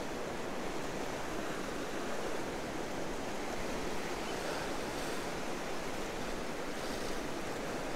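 Surf washing against the rocks of a stone jetty: a steady, even rush of waves.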